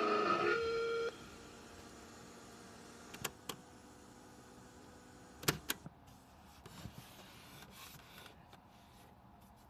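The last held note of a rock song playing from a CD boombox cuts off about a second in. Then a few sharp clicks of the boombox's buttons being pressed, two just after three seconds and two near five and a half seconds, with faint handling noise afterwards.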